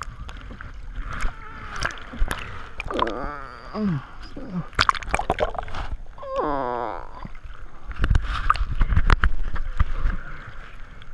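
Sea water sloshing, gurgling and splashing around an action camera bobbing at the waterline, dipping in and out of the water, with a louder stretch of churning water near the end.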